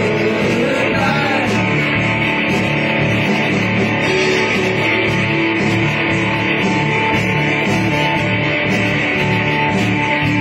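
Live rock band playing a steady rock song on electric guitars and a drum kit.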